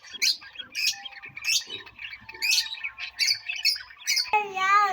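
Aviary birds chirping, a sharp high chirp every second or less with softer calls in between. Near the end a louder, lower-pitched wavering sound starts.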